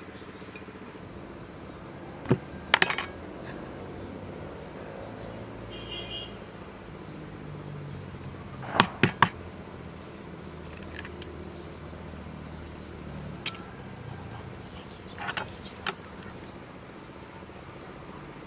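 Light clicks and taps of hands and utensils against glass bowls and a wooden board during hand food preparation. The loudest is a quick run of three sharp taps about nine seconds in: an egg being cracked against a bowl.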